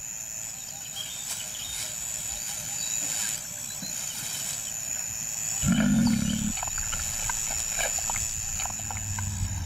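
A lion gives a short, low growl about six seconds in, over a steady high insect buzz and scattered bird chirps.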